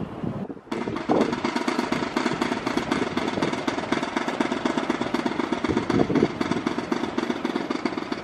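Steady, rapid mechanical hammering that starts just after a brief break about half a second in and runs on without a pause.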